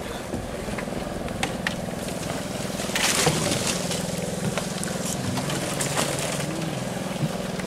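Small boat engine running steadily at a low hum, with a short splash-like burst of noise about three seconds in.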